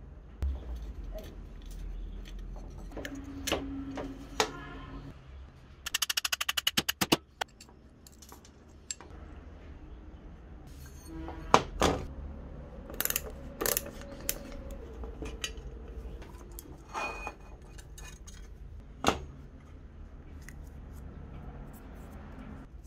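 Metal parts of an old electric bell being handled on a metal workbench: screws, washers and the steel base clinking and knocking, with a quick rattling run of about a dozen clicks around six seconds in and a few sharp knocks later on.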